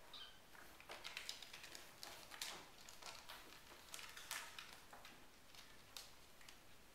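Faint, irregular taps, scratches and patters of RagaMuffin kittens' paws and claws on a sisal scratching post and hardwood floor as they play-fight.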